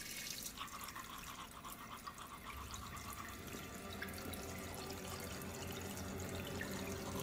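Bathroom tap running into a sink, a steady splashing hiss, with a low hum coming in partway through.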